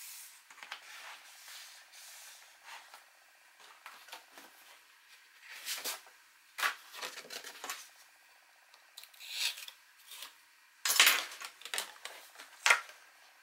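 Cardstock album pages and loose card pieces being handled: a series of short paper slides and rustles, the loudest near the end.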